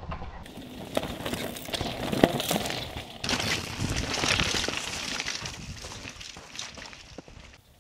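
Downhill mountain bike rolling fast over a loose rocky trail: tyres crunching on gravel and stones, with scattered clicks and knocks from the bike. The sound fades near the end.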